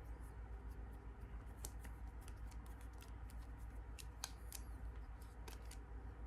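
Hands handling small parts of a knife sharpener while fitting rubber to hold a freshly glued ceramic hone: scattered light clicks and snips over a steady low hum.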